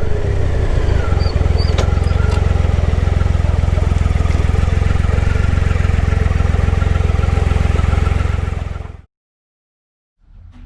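Motorcycle engine running steadily at low revs with a deep, even pulse, picked up by a helmet-mounted mic. It cuts off abruptly about nine seconds in, giving way to silence.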